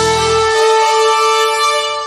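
Outro music holding one long final chord.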